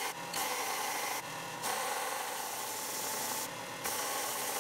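Bench belt sander grinding down a weld bead on a welded exhaust pipe and turbo flange, a steady gritty hiss over the motor's hum that swells and eases several times as the part is pressed onto the belt and let off.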